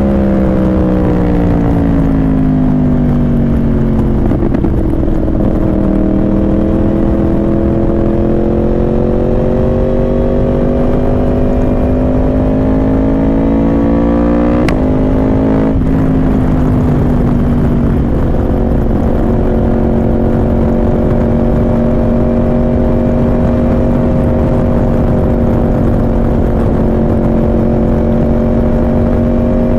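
Yamaha R1 inline-four with a Yoshimura exhaust, heard from on the bike while riding. The engine note drops over the first few seconds as it slows, then climbs slowly as the bike picks up speed. There is a sudden change of note about halfway through, like a gear change, and after that the engine holds a nearly steady cruise under a hiss of wind and road noise.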